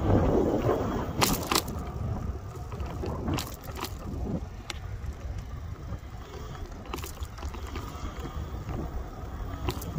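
Wind buffeting the microphone while riding a bicycle on an asphalt path: a steady, uneven low rumble mixed with tyre noise, with a few sharp clicks or knocks from the bike going over bumps.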